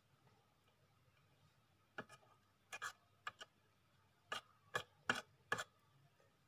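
Wooden spoon stirring curry in a small steel pan. A series of short scrapes and knocks against the pan begins about two seconds in.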